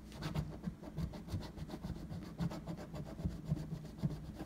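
A scratch-off lottery ticket being scratched: quick scraping strokes across the coating, about three a second.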